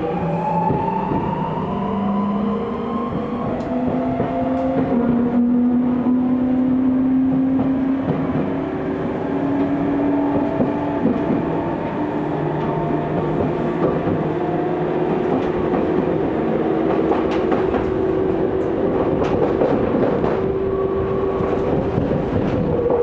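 Tokyu 2000 series electric train accelerating away from a station, heard from inside the car. The inverter and traction motors whine in several tones that climb steadily in pitch as it gathers speed, over the rumble of wheels on rail, with sharp clacks over rail joints later on.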